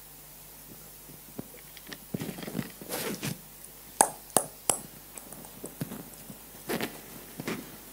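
Rustling and shuffling, with three sharp knocks in quick succession about four seconds in.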